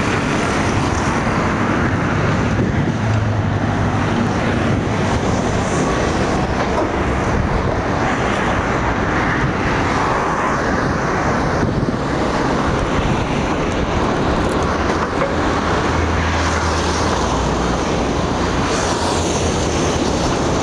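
Steady road traffic noise from passing cars and motorbikes, with wind rushing over the microphone of a moving bicycle.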